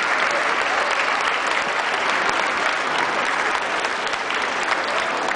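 Audience applauding: a steady clatter of many hands clapping that eases slightly in the last second or so.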